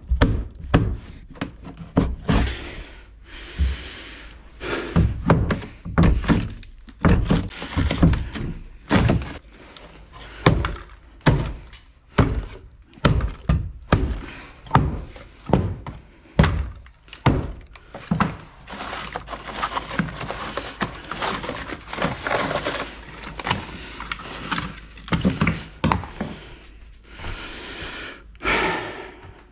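Demolition of old interior ceiling and wall material: a long run of irregular heavy thuds and knocks, with stretches of crunching and scraping as pieces break off and come down.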